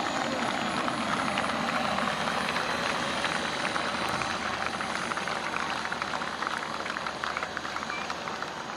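Four JetCat P120 model jet turbines of a giant RC Airbus A380 running at low power on the ground, a steady hiss that eases off slightly near the end.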